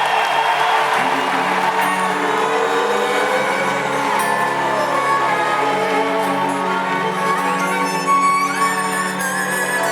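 Live arena concert music: a sustained, string-like passage of held notes played over the PA, with a steady low drone entering about a second in.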